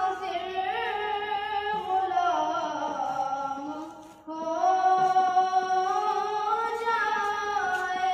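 A boy's solo voice singing a naat, an Urdu devotional poem in praise of the Prophet, into a handheld microphone with no instruments. He sings in long held, slowly gliding melodic phrases, breaks briefly for breath about four seconds in, then begins the next phrase.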